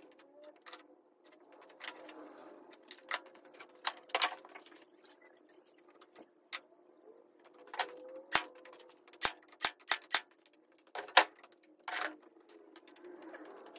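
Pine 1x2 strips clacking and knocking as they are handled and set down on a table saw top: about fifteen sharp wooden clacks at irregular intervals, a few of them loud, over a faint steady hum.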